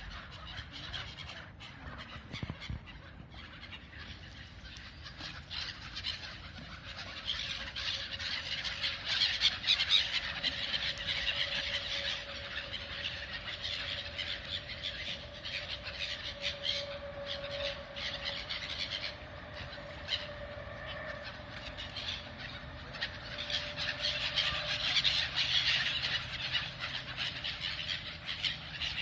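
A crowd of birds calling and squabbling over food, a dense, unbroken chatter of short high squealing calls that swells louder twice.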